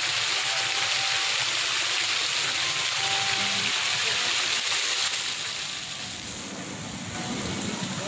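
Pond fountain jet spraying and splashing back onto the water, a steady hiss that falls away about five seconds in.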